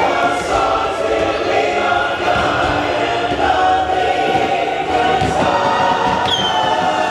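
Choir singing over the ride's music soundtrack, with a whistle-like tone falling in pitch near the end.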